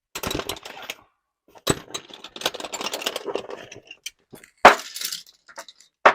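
Metal hand tools clinking and rattling as they are rummaged through, with a sharp metallic clank about four and a half seconds in and another near the end.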